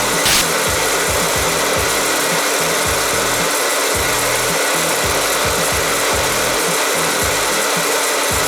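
Hairdryer running steadily, blowing air into a tin-can popcorn popper, with irregular low knocks from inside and one brief sharp click about a third of a second in. The dryer is on its cold setting, so no kernels are popping.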